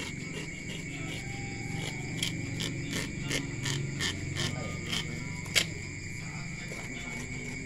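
Crickets trilling steadily, with a low hum underneath. Scattered short clicks and knocks come from a knife working a snake on wet concrete, the sharpest a little over halfway through.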